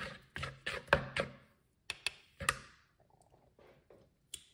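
A metal spoon knocking and scraping against a plastic spoon and a plastic mixing bowl: a run of sharp clicks and light knocks, about seven in the first two and a half seconds, then a few faint ones and one more near the end.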